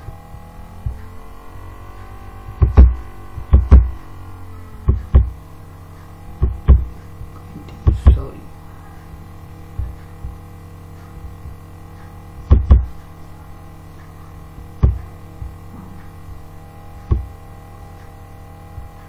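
About a dozen sharp, low thumps and clicks, several coming in quick pairs, over a steady electrical mains hum.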